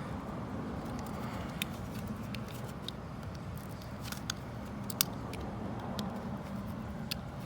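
Scattered sharp clicks and snaps of a plastic wiring-harness connector being pried at to get it apart, the loudest about five seconds in, over a steady low hum.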